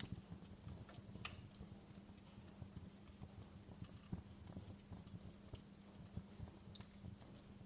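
Faint outdoor wood fire crackling: irregular small pops and a few sharper snaps over a low rumble.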